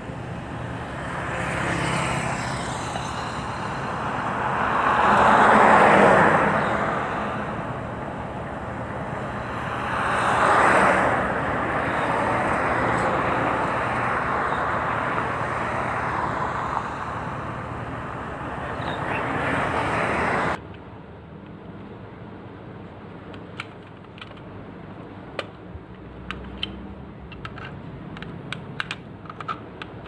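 Outdoor background noise that swells loudly twice, about six and eleven seconds in, and cuts off suddenly about twenty seconds in. After that come scattered small plastic clicks and taps from handling a toy remote control while AAA batteries are fitted into it.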